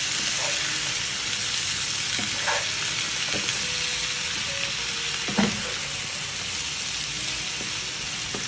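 Pumpkin cubes sizzling in hot oil in a frying pan while a wooden spatula stirs them, with a few scrapes and knocks of the spatula against the pan, the loudest about five seconds in.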